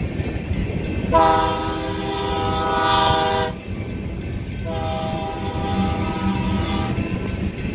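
Freight train of covered hopper cars rumbling past on the rails while the lead Union Pacific SD70M's air horn sounds two long blasts. The first starts about a second in, the second a little over a second after the first ends.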